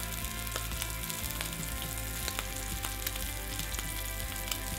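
Snow crab legs frying in clarified butter in a very hot pan: a steady sizzle with scattered small pops and crackles.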